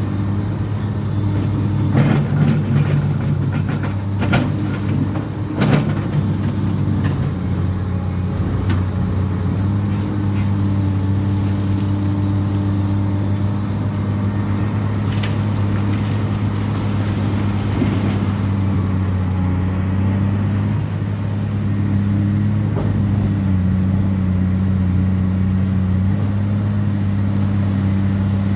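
Heavy diesel engine of an excavator running steadily with a low, even hum. A few seconds in comes a run of sharp knocks and clanks.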